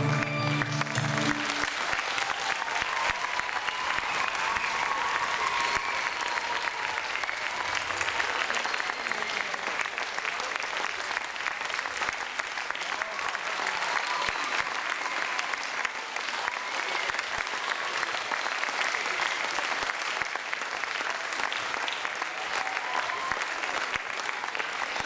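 Live folk band music stops about a second and a half in, and the audience applauds steadily for the rest of the time.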